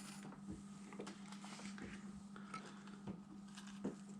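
Faint light clicks and taps of small tools handled at a soldering bench over a steady low hum, with one sharper tick near the end; a rhythmic scrubbing stops just as it begins.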